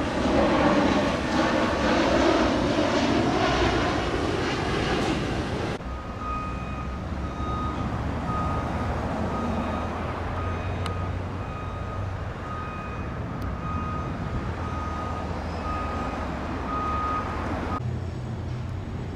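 A jet airliner passing overhead, loud for about the first six seconds. It cuts off abruptly, followed by the steady, evenly spaced beeping of a construction vehicle's reversing alarm, a little over one beep a second, over a low rumble.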